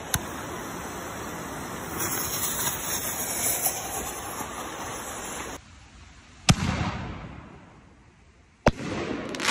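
Canister mortar shell firing. The fuse hisses and sputters for about five seconds, growing louder as it burns into the tube. About six and a half seconds in, the shell lifts out of the tube with a sharp bang, and it bursts overhead with a second bang near the end, followed by a brief rush of noise.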